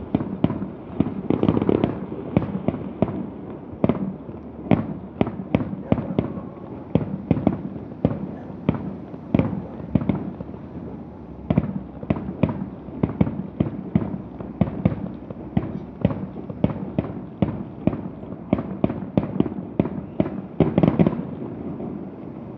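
Fireworks display: a rapid run of shell bursts going off about two a second over a low rumble, with a dense cluster of bangs near the end before they stop.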